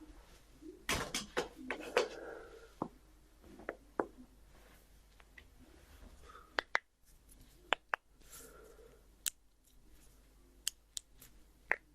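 Spinal joints in the neck and back cracking during a self-adjustment: a quick cluster of several sharp pops about a second in, then single pops every second or so.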